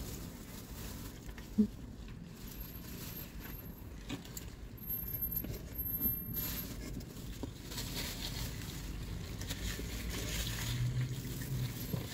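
Quiet eating and handling sounds in a car cabin: chewing, and small clicks and taps of a plastic fork and takeout containers, with one sharper knock about a second and a half in, over a low steady hum.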